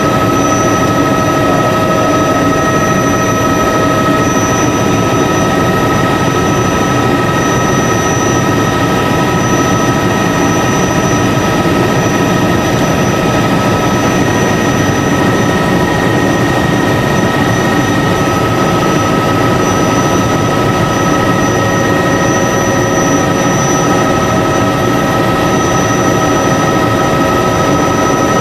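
Helicopter cabin noise in flight: a loud, steady drone of engine and rotor with several high, steady whining tones over it.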